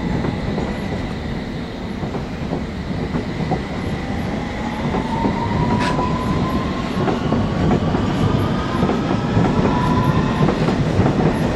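Pair of Class 357 Electrostar electric multiple units pulling out of the station, wheels rumbling on the track. About halfway through, a motor whine rises slowly in pitch as the train gathers speed.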